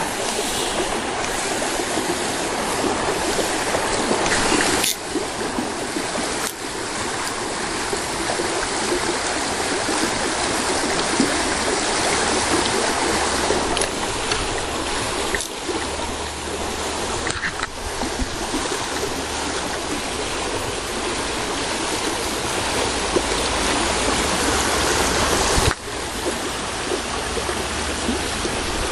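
Fast stream water rushing steadily in an even, loud wash, briefly dipping a few times.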